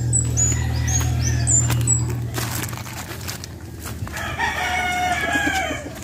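A rooster crows once in the second half, a long drawn-out call lasting about a second and a half. Before it, a small bird chirps in short, high, falling notes over a low hum.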